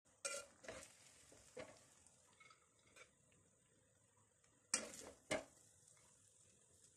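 A metal spoon clinking and scraping against a steel pot and a ceramic plate as rice is served out. There are a few short clinks in the first two seconds and two sharper ones about five seconds in.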